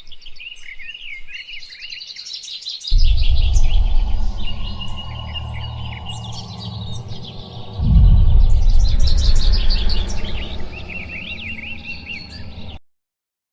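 Birds chirping, with a deep low rumble of a made-up giant creature breaking in suddenly about three seconds in, easing off, then swelling loud again about eight seconds in. Everything cuts off abruptly near the end.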